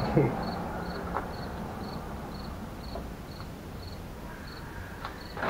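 A cricket chirping steadily, about two short high chirps a second, with a few faint knocks in between.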